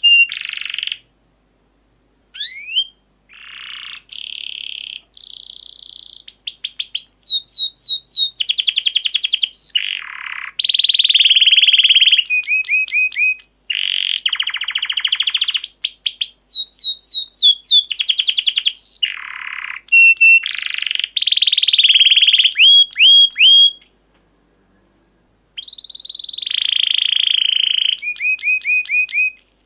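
Canary song: long phrases of fast, high, repeated trills and quick downward-sweeping notes, changing from one trill to the next. It stops dead twice, about a second in and again near 24 seconds in, before starting again.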